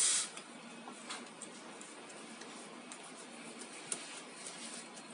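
A short hiss of spray from an aerosol can of cleaning liquid at the start, then faint rubbing and small scattered clicks as fingers work glue residue off a phone's screen glass.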